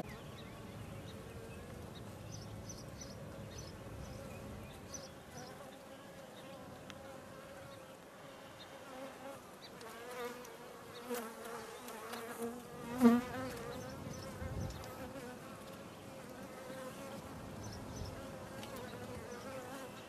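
Honey bees buzzing around an open hive: a steady hum from the colony, with single bees flying close past, their buzz wavering up and down in pitch and loudest about thirteen seconds in.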